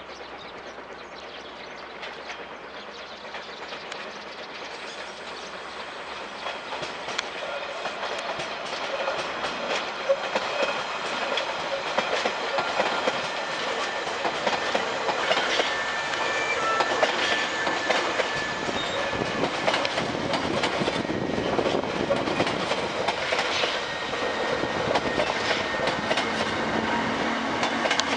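A Hankyu 2300 series electric train with Toyo Denki traction motors pulls away from a station and passes close by, growing louder over the first ten seconds. Its motors whine steadily and its wheels clatter over the rail joints as the cars go by.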